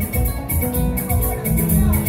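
Live band playing dance music with a steady beat: bass and percussion with a rattling shaker-like pattern on top.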